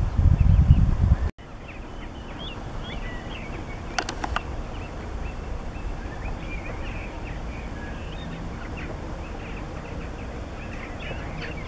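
Small birds chirping busily over a steady low rumble, with a burst of wind on the microphone in the first second before a sudden cut.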